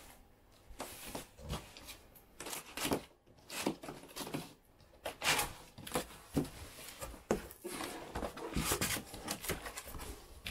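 Cardboard shipping box being opened by hand: irregular scrapes, rustles and knocks as the flaps are pulled apart, with the foam packing inside handled near the end.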